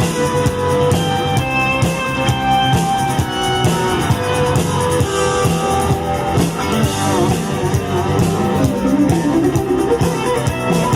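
Rock band's instrumental break: guitar and drum kit playing a steady beat with no singing, a guitar melody standing out early on.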